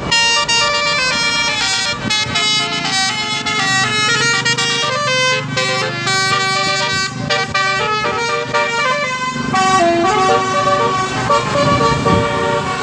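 Telolet (basuri) multi-tone bus air horns playing quick stepped tunes without a break, the notes jumping from pitch to pitch, over a low engine rumble.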